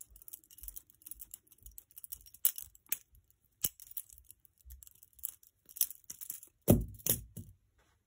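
Butterfly knife (balisong) being flipped in the hand: light, irregular clicks and rattles of the handles and blade rolling and swapping between the fingers, with one louder knock about three-quarters of the way through.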